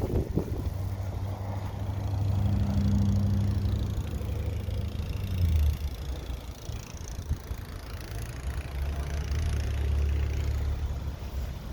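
An engine running with a low, steady hum that swells louder twice.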